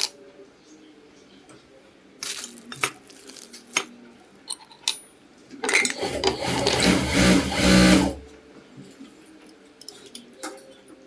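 Sewing machine running in one short burst of about two and a half seconds, starting about six seconds in, with light metallic clicks and taps from its parts being handled before and after.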